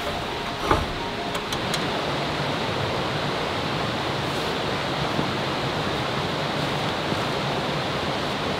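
Steady rushing outdoor ambience of a forest campsite, even and unbroken, with a few faint small clicks in the first two seconds.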